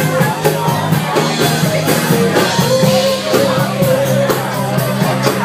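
Rock music with a singer over a steady beat.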